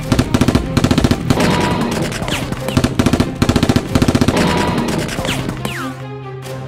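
Automatic-gunfire sound effect in several rapid bursts, with short falling whistles between them, over background music.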